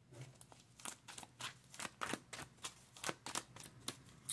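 A deck of tarot cards being shuffled by hand: a run of soft, irregular card slaps and flicks, about four or five a second.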